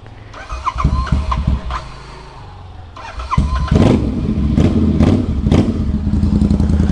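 Royal Enfield Interceptor 650 parallel-twin, bored out to 865 cc and breathing through a full-system Atom exhaust, being started: a first burst of cranking about half a second in dies away, then the starter cranks again near three seconds and the engine catches and settles into a loud idle.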